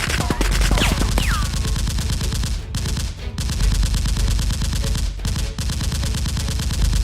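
Rapid automatic gunfire, long continuous bursts of fast shots with brief breaks about three and five seconds in, and a couple of short falling whistles near the start.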